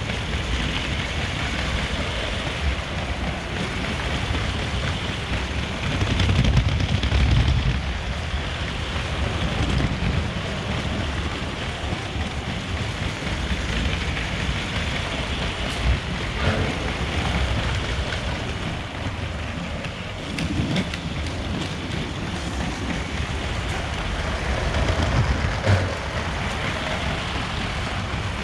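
LEGO train running along plastic track: a steady rumbling clatter of wheels and motor, swelling louder a few times, with an occasional sharp click.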